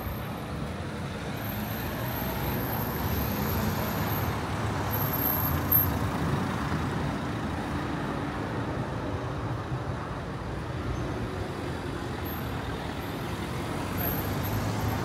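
Steady city street traffic, with the engine of a large road vehicle running close to the microphone.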